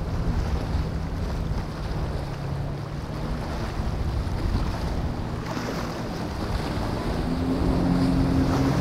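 Center-console boat's outboard engines running at speed, a steady drone under rushing water and wind on the microphone. Near the end the engine note grows louder, with a slightly higher tone joining in.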